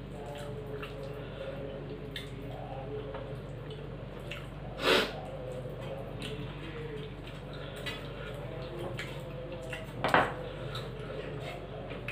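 Eating by hand from a steel plate: wet squishing of rice and curry being mixed and picked up by the fingers, with small clicks against the steel plate and bowls. Two louder short noisy sounds stand out, about five and ten seconds in, over a steady low hum.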